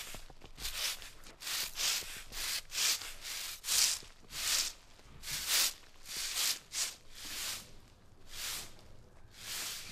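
Stiff brooms sweeping fallen leaves off an asphalt path: a run of scratchy swishing strokes, roughly one every half-second to second, uneven as several sweepers work.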